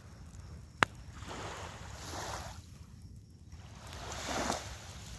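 Waves washing onto a sandy shore: two swells of rushing noise that rise and fall a few seconds apart, with one sharp click just under a second in.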